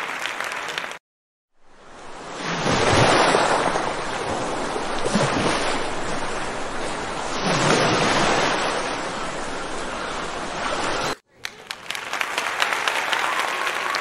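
Sea waves surging and breaking on a shore, swelling up to two big breakers about five seconds apart, in a recording of surf with seagulls. It fades in after a brief silence and cuts off sharply near the end, when applause begins.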